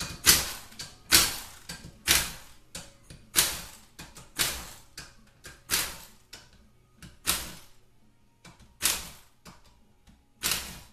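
Tool work on the 8 mm bolts of a 6L80 transmission's front pump as they are loosened and removed: about ten short, sharp mechanical bursts, roughly one a second, spacing out a little near the end.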